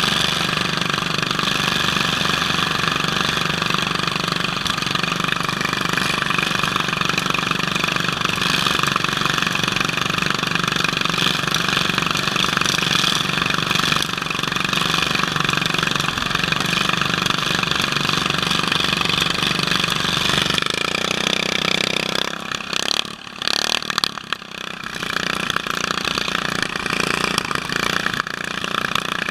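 Racing riding lawn mower's small engine running steadily under the rider, heard up close from the helmet. About three-quarters of the way through its sound drops and breaks up for a few seconds, then comes back.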